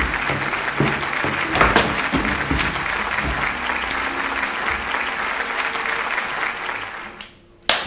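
Applause from a small group of onlookers, clapping steadily and dying away near the end, over background music.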